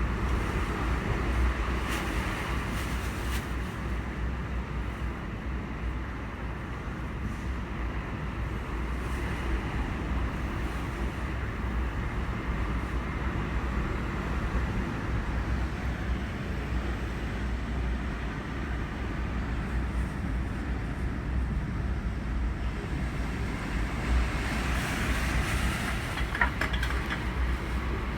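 Typhoon wind buffeting the microphone: a steady rushing noise over a fluttering low rumble, swelling a little near the end.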